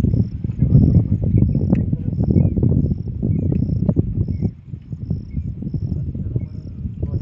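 A cricket chirping in an even rhythm, a little under twice a second, over a loud low rumble with scattered knocks.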